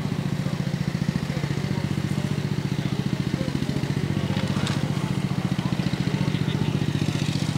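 An engine idling steadily, with a fast, even firing beat.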